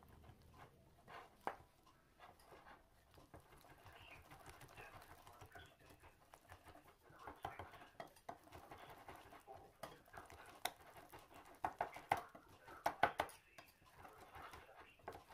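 Wire whisk beating a thick egg, milk and flour batter in a ceramic bowl, clicking and scraping against the bowl. The taps grow quicker and louder about halfway through.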